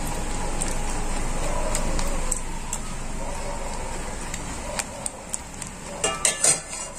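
Wire whisk stirring a thick cream sauce in a metal pot, over a steady rushing noise. In the last two seconds the whisk clicks sharply against the pot's side several times.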